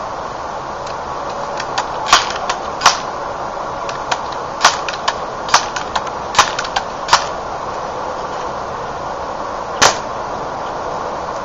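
Crosman PowerMaster 760 pump air rifle: about six sharp clacks in quick succession as it is pumped, then a single louder crack as it fires near the end.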